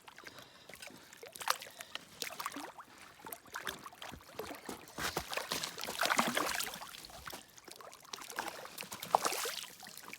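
Water splashing and sloshing close by in irregular bursts, with a louder stretch around the middle.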